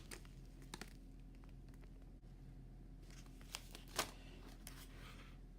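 A few faint clicks and light rustles of MRE food pouches being handled, the loudest about four seconds in, over a quiet room hum.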